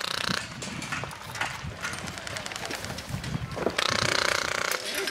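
An airsoft gun firing full-auto: one burst cuts off about half a second in, and a second burst of about a second comes near the end. Footsteps and rustling sound between the bursts.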